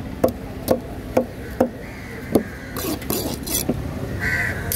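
Large knife chopping through barracuda flesh onto a wooden cutting board: five sharp knocks, about two a second, in the first half. A crow caws near the end.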